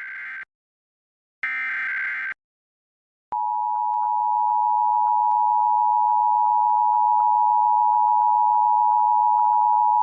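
Emergency Alert System SAME header: the tail of one short burst of data tones and then one more full burst, each about a second long. About a second of silence follows. Then the EAS two-tone attention signal (853 and 960 Hz sounded together) starts a little past three seconds in and holds steady and loud, as it does at the opening of an alert.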